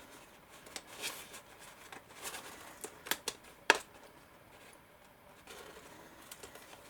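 Card stock being handled and pressed together: scattered light taps, clicks and rustles of paper, with the sharpest click a little past the middle.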